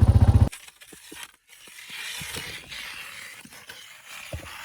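Small gas engine of an ice auger running with a fast, even pulse, then cutting out abruptly about half a second in. After it come a few light knocks and a soft scraping crunch of ice slush being worked in the fresh hole.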